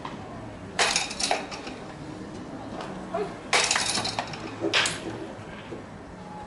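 Sharp cracks of a baseball bat hitting pitched balls in batting practice, two hits about three seconds apart, each followed by a lighter knock.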